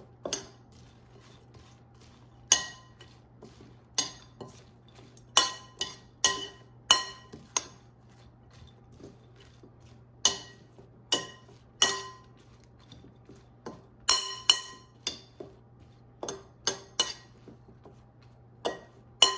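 Utensils clinking against a bowl as shaved Brussels sprouts are tossed with oil and seasonings. The clinks are sharp and irregular, about one a second with short pauses, and each has a brief ring.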